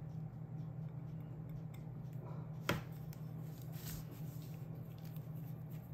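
Quiet small handling sounds as E6000 glue is put on the wire and glass piece, with one sharp click about two and a half seconds in, over a steady low hum.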